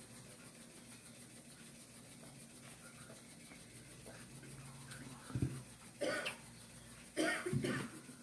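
Close-miked mouth sounds of someone eating and drinking. It is quiet over a faint steady hum at first, then a low thump about five seconds in and a few short, loud mouth noises in the last two seconds.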